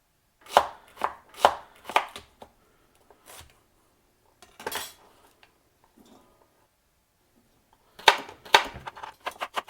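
Knife chopping celery stalks on a cutting board: five cuts about half a second apart, a few scattered cuts, then a quick run of cuts near the end.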